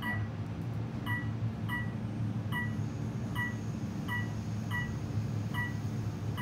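Modernized Otis Elevonic 401 elevator descending at speed: its floor-passing chime gives a short high beep as each floor goes by, about one every three-quarters of a second, over the steady low hum of the moving cab.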